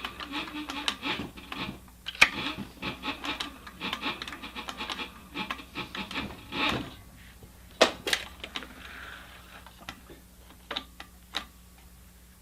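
Rapid back-and-forth rubbing and scraping on the edge of a leather knife sheath as the edge is smoothed by hand. After about seven seconds the strokes stop, leaving a few sharp taps and clicks.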